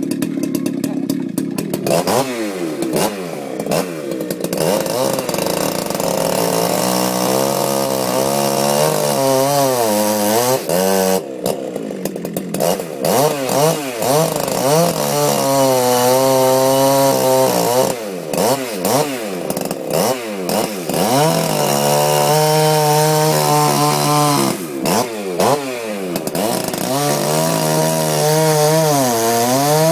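Big chainsaw revving up and down over and over, held at high revs for several seconds at a time, as when cutting wood, with brief drops in engine speed between cuts.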